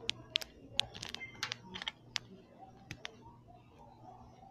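Irregular light clicks and taps, several in quick succession in the first two seconds and then sparser, over a faint steady low hum.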